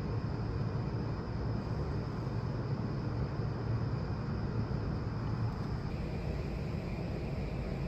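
Steady ambient hum of building machinery and air handling, a low drone under an even rush of air. About six seconds in the tone shifts, with less low drone and a faint higher hiss.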